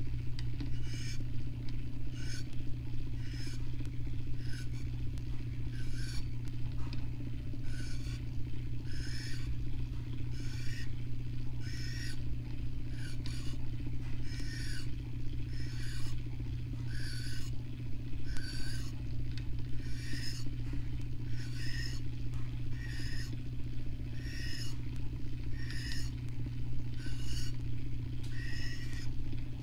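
Rod-turning motor humming steadily, with a short squeak repeating about every three-quarters of a second as the epoxy-coated fishing rod rotates.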